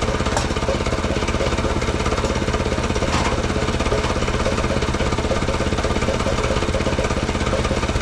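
Mechmaxx SM-22 portable sawmill's gasoline engine running steadily with a fast, even pulse.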